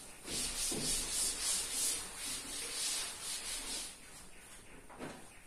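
A cloth wiping chalk off a chalkboard: quick repeated back-and-forth rubbing strokes that stop about four seconds in.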